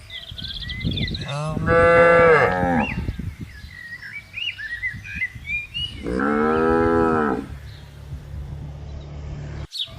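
Cows mooing: two long, drawn-out moos about four seconds apart, the first a little louder.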